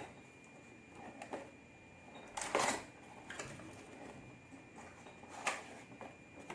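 Packaging being opened and handled: a few short separate rustles and knocks, the loudest about two and a half seconds in.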